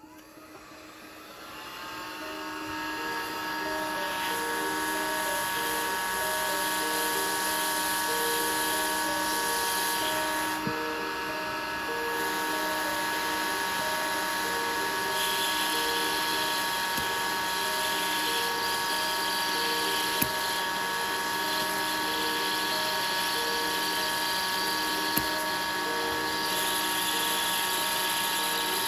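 Hot air gun blowing onto a key fob circuit board to heat and desolder a chip. Its fan whine and rushing air rise over the first couple of seconds, then hold steady, with a couple of faint ticks.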